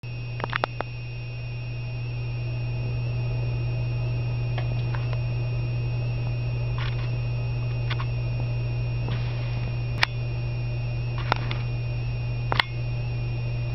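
Camcorder running noise: a steady low hum with a thin high whine over it, broken by scattered sharp clicks and taps, three of them louder near the end.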